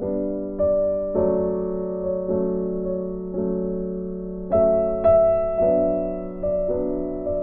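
Background music: slow, gentle piano playing chords with notes that ring and fade, over a held low note.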